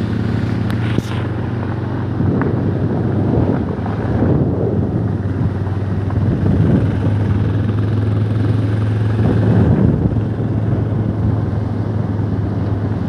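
Bajaj Pulsar 220F's single-cylinder engine running steadily while riding, a constant low hum under a rushing, fluctuating noise of wind and road.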